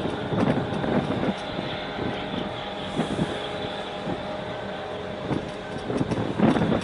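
A boat's engine drones steadily, with water rushing and irregular surges of wind on the microphone.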